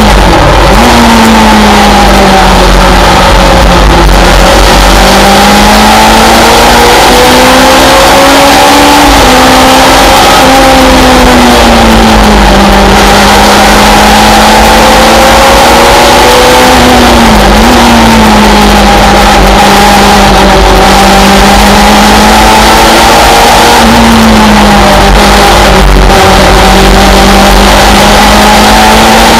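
Onboard sound of a Simca race car's four-cylinder engine at racing revs, its pitch rising and falling with the track, with three quick dips and pick-ups at gear changes. Heavy wind and road noise run under the engine.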